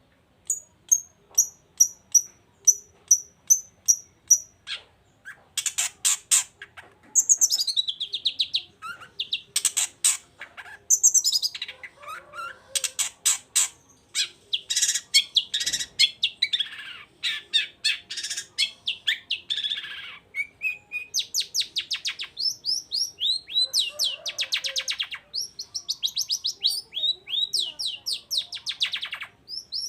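Long-tailed shrike (cendet) singing. It opens with a run of evenly repeated high notes, about two a second, then breaks into fast, varied chatter with trills and down-sweeping whistled notes.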